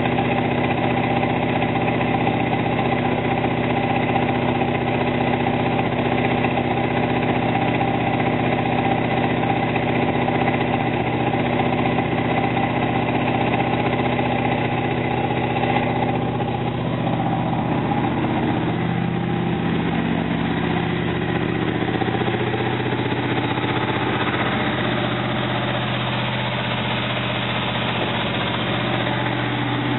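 Oldsmobile 350 V8 running steadily during break-in of a new Comp Cams XE268 camshaft. Its tone shifts slightly just past halfway.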